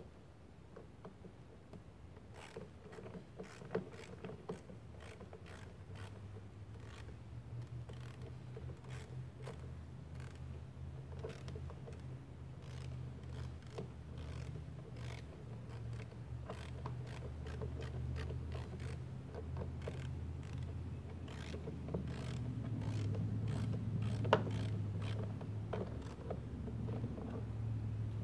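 Screws being turned out of a lawn mower engine's air filter housing with a hand tool: irregular small clicks and scrapes of metal on plastic. Under them runs a steady low hum that gets louder about two-thirds through.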